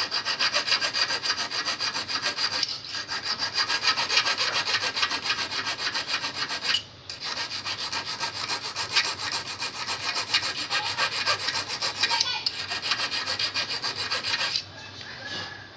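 Small metal hand file rasping back and forth over a steel fishhook, filing its point and barb, in quick even strokes. The filing breaks off briefly twice and stops about a second before the end.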